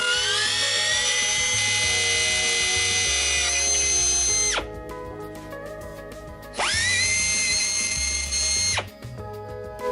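Desoutter air drill running free: a high whine that climbs in pitch as the motor spins up, runs steadily and cuts off sharply after about four and a half seconds. About two seconds later a second, shorter run spins up fast, holds and stops.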